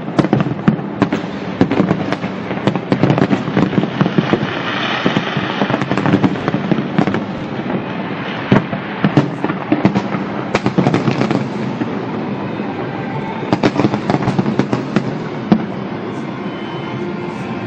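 Fireworks going off in quick succession: many sharp bangs and cracks in clusters, with a stretch of dense crackling about five seconds in. The bangs thin out near the end.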